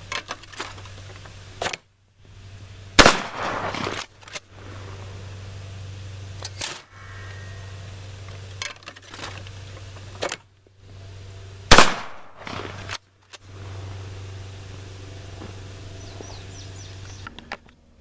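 Two 12-gauge pump shotgun blasts, about three seconds in and near twelve seconds in, each ringing out for about a second; the second is the louder. Under them a homemade clay thrower's spinning wheel motor hums steadily.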